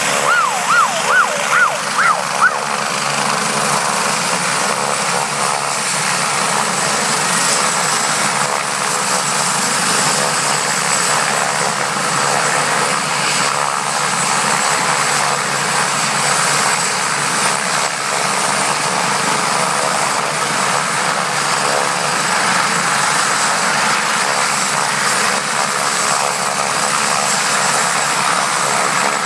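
Medevac helicopter running on the ground: a steady turbine whine over the constant rush of the engines and rotor. In the first couple of seconds a quick run of rising-and-falling whistling tones sounds over it.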